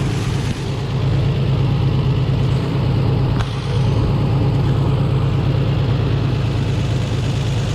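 Engine idling steadily, a low even pulsing note; a brief click about three and a half seconds in.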